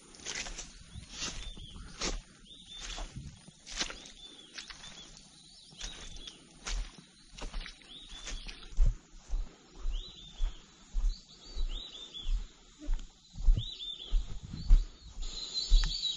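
Footsteps through wet, waterlogged grass, steady at about two steps a second in the second half, with repeated short, high whistled bird calls that grow louder near the end.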